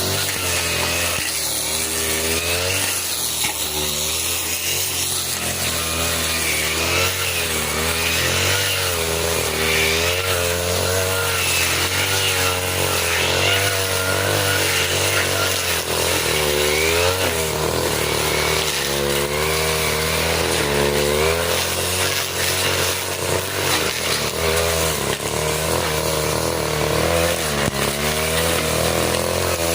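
A 40cc two-stroke brush cutter running under load as it cuts thick grass. Its engine pitch keeps rising and falling with the swings of the blade.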